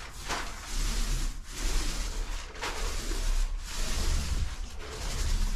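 Paint roller on an extension pole rolling PVA primer across a textured drywall ceiling: a rasping swish with each stroke, about five strokes roughly a second apart, over a low rumble.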